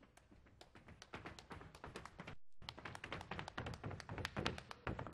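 Solo body percussion: quick taps, clicks and slaps made with the hands on the body. They start soft and sparse, grow louder and denser after about a second, and stop briefly about halfway through.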